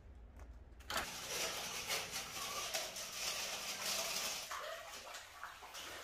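Water running from a hose into a plastic basin and splashing as hands wash in it, starting abruptly about a second in.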